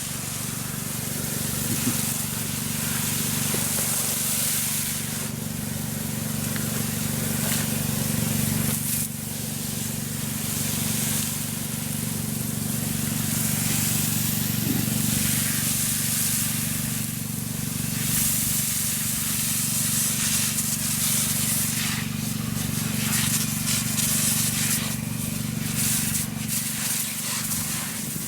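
Water spraying from a fire hose, a steady hiss that swells and fades, over a steady low drone.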